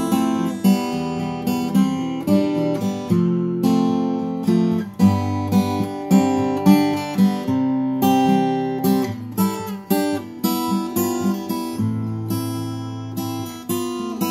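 A 1981 Cat's Eyes CE-1200D steel-string dreadnought acoustic guitar played fingerstyle: plucked single notes and chords, each left to ring, in a steady, unhurried rhythm.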